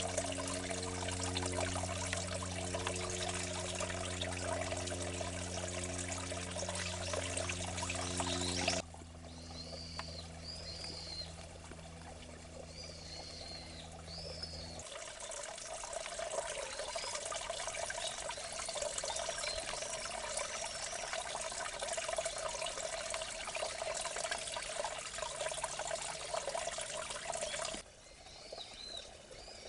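Water pouring and trickling in a small irrigation ditch, over a steady low hum during the first part. The water sound stops abruptly about nine seconds in, leaving short bird calls. It starts again about fifteen seconds in and stops abruptly again near the end.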